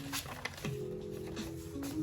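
Lo-fi background music: soft sustained chords with sliding bass notes and light clicks.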